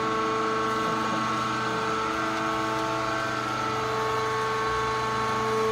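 Sawdust pallet hot press machine running with a steady hum of several held tones, with no strokes or bangs.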